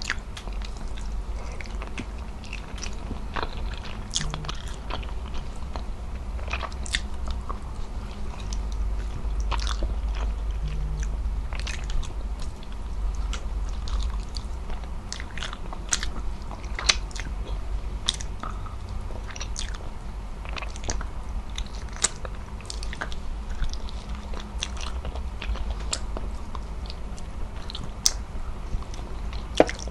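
Close-miked chewing of braised beef trotter adobo and rice eaten by hand: wet mouth clicks and smacks scattered irregularly, over a steady low hum.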